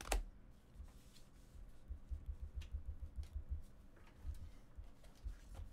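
Trading cards and packs being handled on a table: a sharp tap at the start, then a run of soft low bumps and faint clicks.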